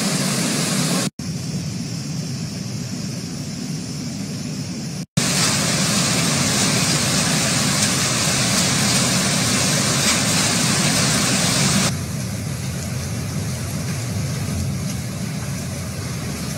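Steady rushing noise of floodwater and rain pouring down a city street, heard through a phone recording. It cuts out abruptly twice, about a second in and about five seconds in, and comes back each time with a slightly different sound.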